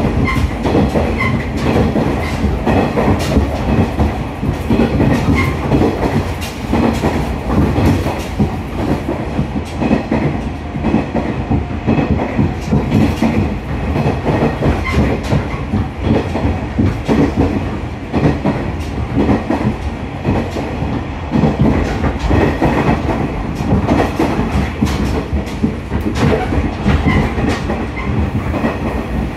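Interior running sound of a JR KiHa 110 series diesel railcar on the move. A steady low rumble from the car's engine and running gear is heard, with the wheels clicking repeatedly over rail joints.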